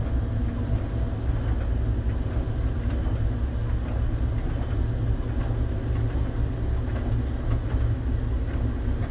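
Steady low drone and rumble of a moving train heard from inside the locomotive cab.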